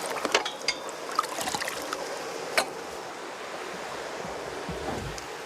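Water running steadily through a levada irrigation channel and basin. A few light knocks and scrapes come in the first couple of seconds, with one sharp click about two and a half seconds in.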